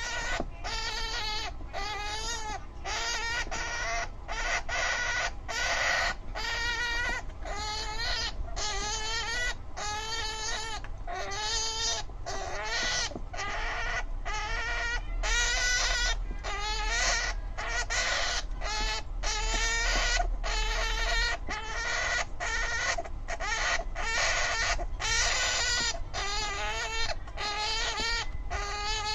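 Syrian hamster screaming over and over: a long run of short, squealing calls with a quavering pitch, about one or two a second. This is its angry, defensive noise.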